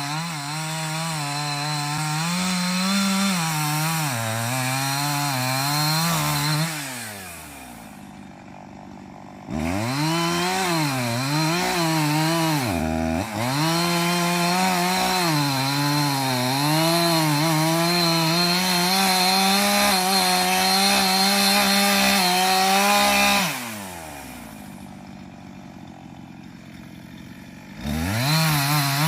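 Chainsaw engine running at high revs with a wavering pitch as it cuts wood. It drops to idle twice, about seven seconds in and again near twenty-four seconds, revving back up each time.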